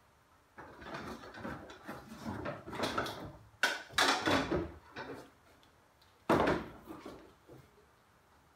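Rustling and knocking as a power cable is pulled out of a cardboard box and uncoiled by hand. There are several sharp knocks: two close together near the middle, and one louder knock after about six seconds.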